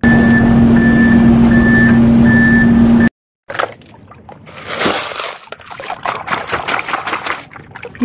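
A truck sound effect: a steady engine drone with a short beep repeating about twice a second, cut off suddenly about three seconds in. Then water splashing and sloshing as a hand moves through shallow muddy water, loudest around five seconds in.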